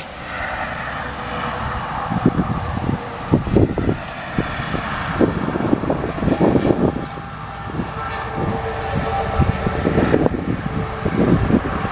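Wind buffeting the microphone in irregular gusts, over a faint steady hum.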